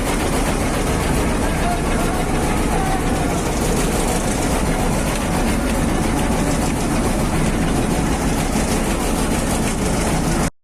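Boat engine running steadily and loudly, with faint voices underneath; the sound cuts off suddenly at the very end.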